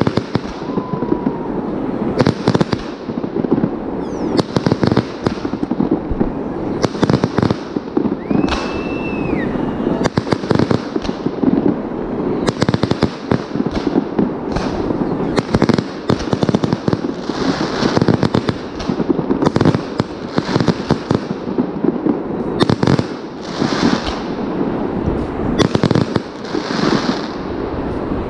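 Fireworks display: many aerial shells bursting one after another in a dense, overlapping run of bangs and crackling, with a brief whistle about eight seconds in.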